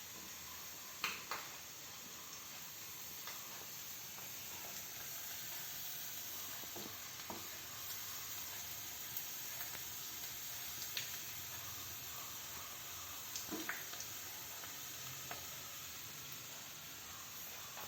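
Batter- and crumb-coated squid pieces deep-frying in hot oil: a steady sizzle broken by a few short sharp pops.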